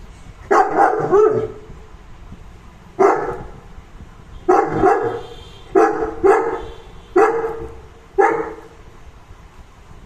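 A St. Bernard barking: about ten short barks, three in quick succession near the start, then one every second or so.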